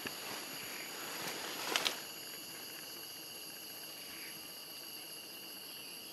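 Steady high-pitched forest insect chorus of several even, unbroken tones, with a brief faint scuffle of clicks a little under two seconds in.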